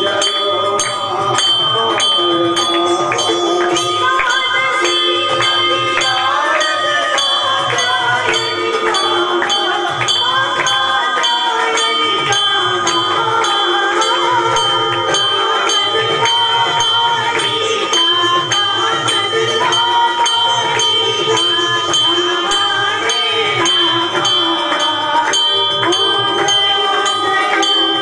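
Music with a steady beat of about two strokes a second and a wavering melody over two held tones.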